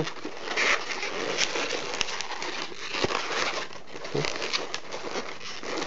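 A white latex 160 modelling balloon being twisted and bent by hand into fingers: rubbery rustling and scattered sharp ticks as the inflated latex rubs against itself and the fingers.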